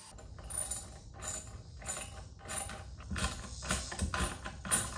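Lag screw being tightened through a wooden board into a wall stud: a run of short ratcheting mechanical strokes, about eight of them, a little more than one a second and coming closer together later on.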